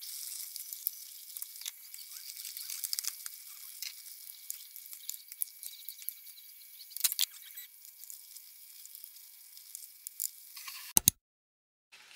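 Braised short-rib stew (galbi-jjim) with potatoes and onions simmering down in a pot, a steady sizzling crackle of the sauce reducing, with small clicks of a wooden spoon stirring it. A single sharp knock near the end, then the sound cuts off.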